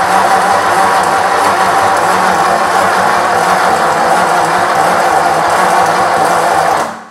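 Starter cranking the rebuilt 1937 Ford flathead V8-60 in a steady, unbroken spin without the engine catching, then letting go and winding down just before the end. The owner blames the failure to start on a leaking Stromberg carburetor that is flooding it.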